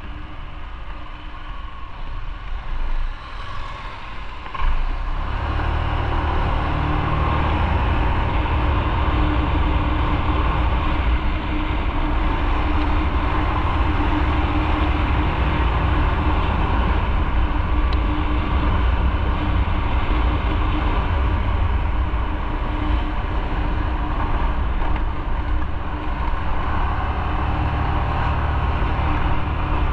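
Motorcycle running on the road, its engine hum under a steady rushing noise, growing louder about five seconds in and staying loud.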